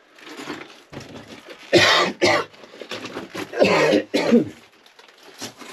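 A man coughing and clearing his throat in a few short bursts: two close together about two seconds in, and two more near four seconds.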